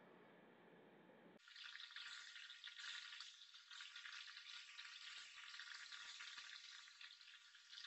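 Faint, hissy crinkling and rustling of a clear plastic bag and paper towel being handled, starting about a second and a half in.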